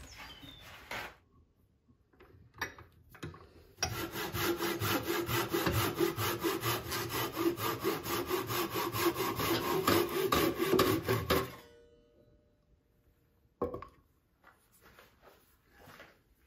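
Hand saw cutting through a birch log in quick, even back-and-forth strokes for about eight seconds, stopping abruptly. A single knock follows a couple of seconds later.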